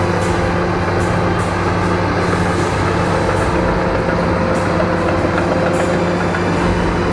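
Bulldozer working: its diesel engine runs steadily under load, with occasional sharp clanks from the steel tracks.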